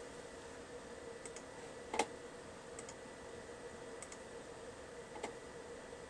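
Computer mouse and keyboard clicks: a few single and paired clicks, the loudest about two seconds in, over a steady faint hum.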